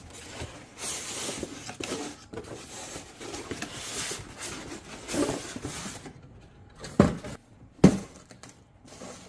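Packaging being handled while a box is unpacked: rustling of cardboard, plastic and paper with small clicks, then two sharp knocks a second apart near the end.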